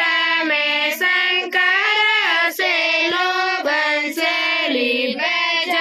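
A song playing: a high singing voice with music, holding long notes that step up and down in pitch.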